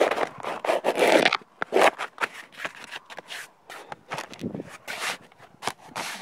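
A stiff black roofing sheet being pushed, bent and slid by hand against painted wood trim and siding. It makes a run of irregular scraping and rustling strokes, loudest in the first second or so, then shorter scrapes and light clicks.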